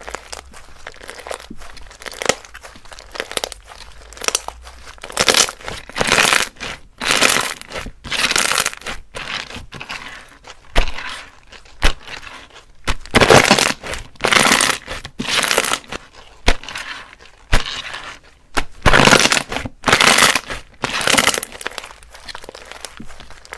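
Crunchy slime being squeezed and pressed by hand, crackling and popping in repeated bursts about once a second, faint at first and louder from about five seconds in.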